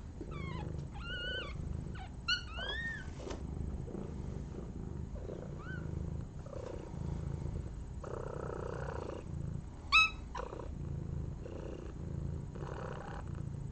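A mother cat, fresh from giving birth, purring steadily, with a newborn kitten's high, thin squeaking mews several times over it; the loudest mew comes about ten seconds in.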